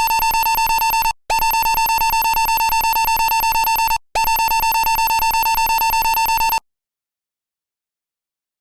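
Electronic evacuation alarm buzzing in long blasts: a harsh, rapidly pulsing tone that breaks off about a second in, sounds twice more for about two and a half seconds each, and cuts off suddenly well before the end.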